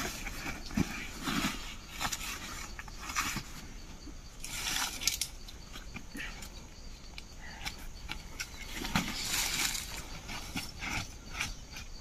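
Footsteps and rustling in dry leaf litter, with irregular snaps and cracks from sticks being handled.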